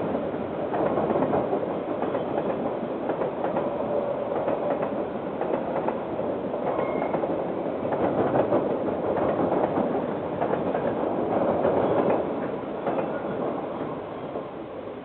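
A KiwiRail train rolling past on the rails, its wheels clicking over the track. The noise fades away over the last few seconds as the train moves off.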